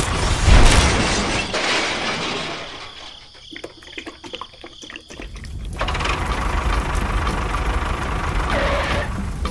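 Sound effects for a toy tractor falling through a collapsing model bridge: a loud crash with breaking noise, then a run of sharp cracks, then a steady engine-like rumble from about six seconds in.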